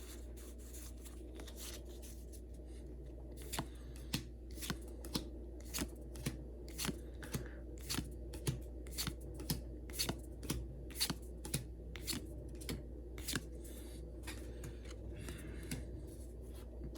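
Crisp clicks and snaps of trading cards being handled and flipped one by one, about two a second, over a faint steady hum.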